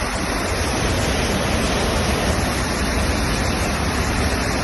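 Floodwater rushing in a loud, steady torrent, with a deep rumble underneath.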